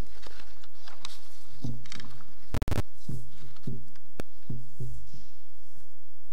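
A series of soft low thumps and light clicks, about three a second through the middle, with a short crackle about two and a half seconds in.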